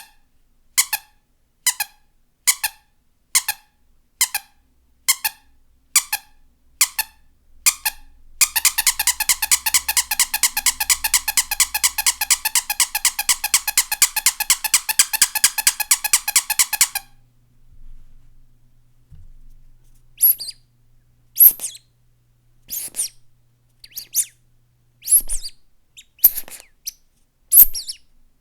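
Squeaky toys being squeezed: first a steady series of single squeaks about one a second, then roughly eight seconds of rapid, continuous squeaking, and after a short pause a run of irregular, higher-pitched squeaks.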